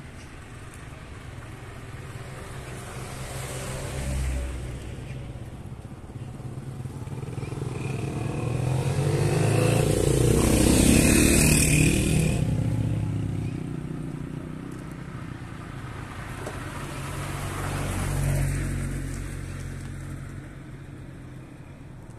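Motor vehicles passing close by on a road, each one rising and then fading. The loudest pass comes about halfway through, with a smaller one near the start and another near the end.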